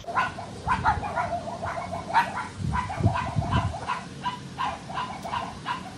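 An animal calling in a quick run of short yelps, about three a second.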